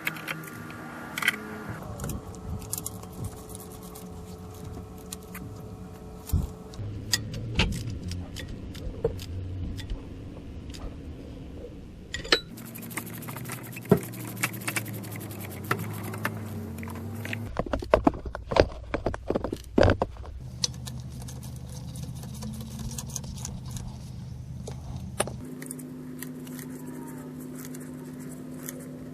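Metal tools clinking and clicking against engine mount bolts and brackets, in scattered sharp knocks with a dense run of clicks about two-thirds of the way through. Underneath is background music of sustained chords that change every few seconds.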